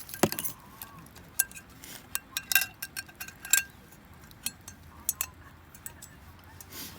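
Cups and tableware clinking and knocking together in a string of irregular light taps, a few of them ringing briefly.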